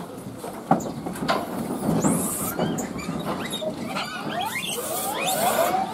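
A troop of Japanese macaques calling in excitement at feeding time: many short, high squeaks and chirps overlapping, growing busier through the second half. Two sharp knocks sound about a second in.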